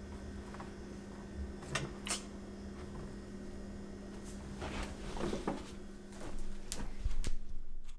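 A few short, sharp clicks at irregular intervals, with rustling handling noise toward the end, over a steady low hum.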